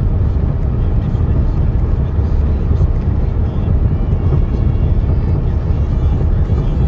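Steady, loud, low rumble of vehicle noise.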